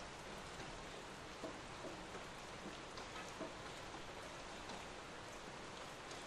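Steady rain falling, with a few single drops ticking out here and there above the even hiss.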